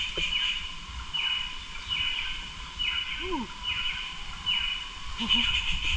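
Rainforest ambience: a high, slightly falling chirp that repeats about once a second over a steady background hiss.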